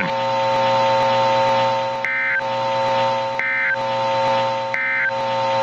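Emergency Alert System end-of-message tones: three short data-burst chirps about 1.4 seconds apart, over a steady buzzing alarm tone and static hiss.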